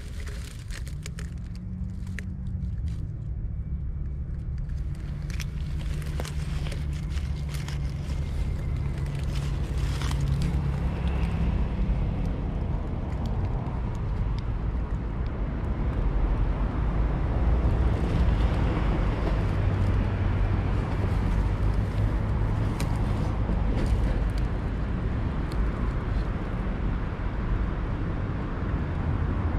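A motor vehicle's engine running close by: a low hum whose pitch wavers in the first few seconds and which grows louder over the first half, then holds. A few sharp clicks sound over it in the first dozen seconds.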